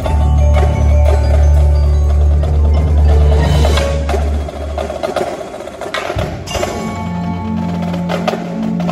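Indoor percussion ensemble playing: marimbas and other mallet keyboards strike quick notes over deep held bass notes. The bass fades out about halfway through, and a higher bass line comes in near the end.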